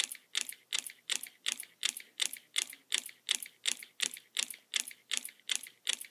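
Homemade solenoid engine, built around a solenoid from an old printer driving a paper-clip crankshaft, running slowly with a steady clacking about three times a second.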